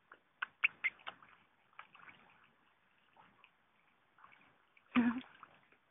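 Goldfish and carp splashing and gulping at the pond surface as they crowd a hand held over the water: a quick run of sharp little splashes about half a second in, then scattered softer ones, and a louder splash about five seconds in.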